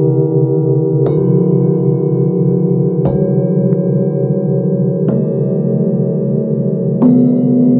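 A set of forged singing bowls struck one after another with a felt-headed mallet: four strikes about two seconds apart, each a step higher in pitch, their ringing tones layering with a slow wobble.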